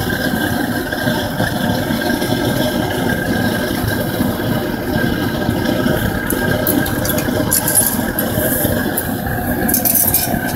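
Backyard metal-melting furnace's burner running steadily, a constant noisy rumble, with a few light clicks in the second half from the metal crucible and tongs being handled.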